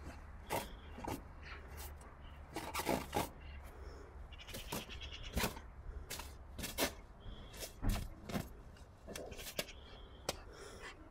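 Rubber balloon squeaking and bumping at irregular moments as a dog noses and mouths it, with several short squeaks clustered around three and five seconds in.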